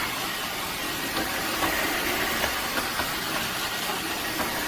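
Dreame H12 Dual cordless wet-dry floor washer running in suction mode, its motor drawing water up off the floor with a steady, even hiss.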